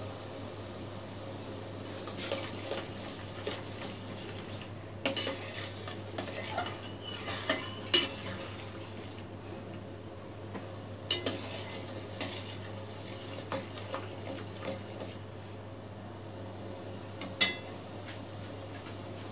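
Metal spatula stirring and scraping in a stainless steel pot of cooking sugar syrup, in two spells of several seconds with sharp clinks of metal on metal, and a steady low hum underneath.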